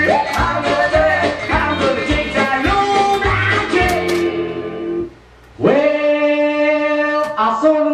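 A rock and roll record with singing, guitar and a steady drum beat plays, then ends about four seconds in. After a short gap of about half a second, the next record starts with a long, ringing guitar chord.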